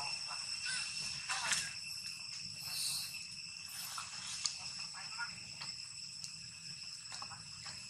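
Insects droning steadily at a few fixed high pitches, with scattered soft rustles and ticks from dry leaves as a long-tailed macaque picks through the leaf litter.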